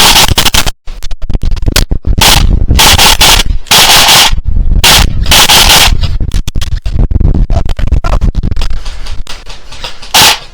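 Loud wind buffeting a gun-mounted scope camera's microphone, with rapid sharp clicks and cracks of airsoft gunfire mixed in.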